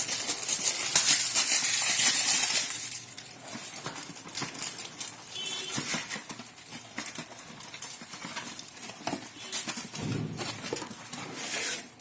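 Packaging wrapper being crinkled and torn off a boxed sky-shot firework. Loud crackling for the first two or three seconds, then quieter handling with scattered light knocks and clicks.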